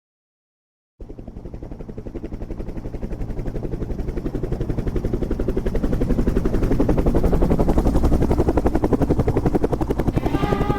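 Rapid, even chopping of helicopter rotor blades, starting about a second in and growing steadily louder. Steady musical notes join it near the end.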